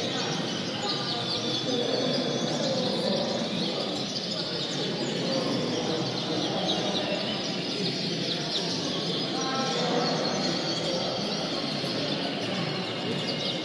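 Many caged show canaries chirping and singing at once: a dense, continuous chorus of quick high calls over a steady low background noise.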